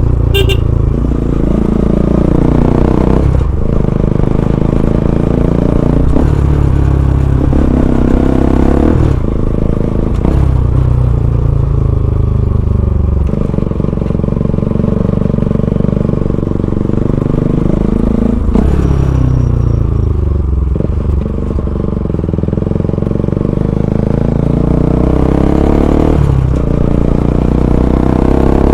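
Bajaj Pulsar NS200's single-cylinder engine through an Akrapovic full-system exhaust while riding, the engine note rising and falling as it pulls through the revs. A sharp break in the note marks a gear change every few seconds.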